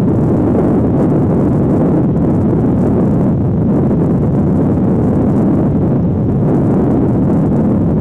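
Wind buffeting the microphone, a steady loud rush with no breaks.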